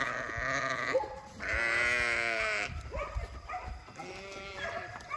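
Dorper sheep bleating as the flock runs: one long, quavering bleat about one and a half seconds in, followed by shorter, fainter bleats.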